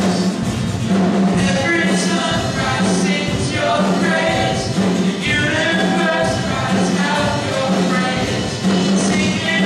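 Live contemporary worship band: several voices singing together over strummed acoustic guitars and keyboard, with a steady pulsing bass note.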